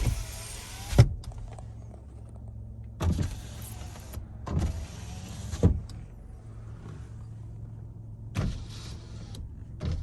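Power window motor on a 2014 Nissan Rogue's passenger door running in four short bursts of about a second each, worked from the driver's door switch; the first and third end with a sharp thud as the glass stops. A steady low engine idle runs underneath.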